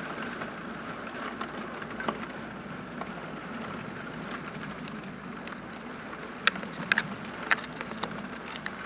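Steady hiss of rain during a thunderstorm, with a few sharp clicks between about six and eight seconds in.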